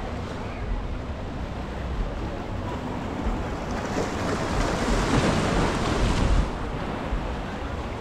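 Ocean surf on a beach: a steady wash of waves, with one wave rushing in louder about halfway through and falling away abruptly toward the end. A low rumble of wind on the microphone runs underneath.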